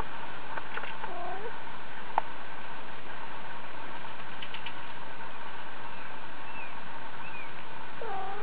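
Domestic cat meowing twice, once about a second in and again near the end, over a steady background hiss, with a single sharp click in between.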